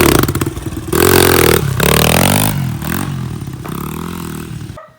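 A motor vehicle's engine running and revving up and down, with a loud rattling clatter. It cuts off suddenly near the end.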